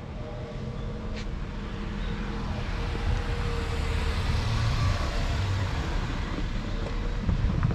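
A minivan driving past on an asphalt road, its tyre and engine noise swelling to a peak about halfway through and then easing off.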